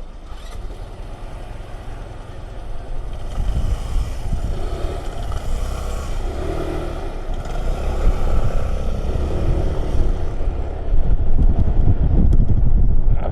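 Motor vehicle engines running, getting louder a few seconds in and again near the end.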